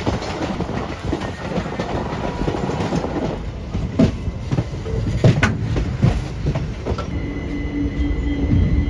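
Passenger train coaches rolling slowly into a station, wheels clacking over rail joints and points with a rumbling undertone. A few hard clacks come in the middle, and a steady high squeal joins near the end as the train draws in.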